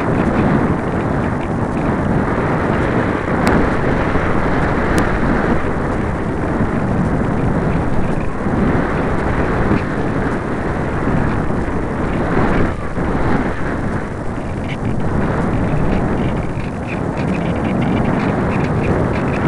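Loud wind rush from airflow over the microphone of a camera riding on a light model thermal glider in flight, swelling and easing with the blustery air; no motor is heard.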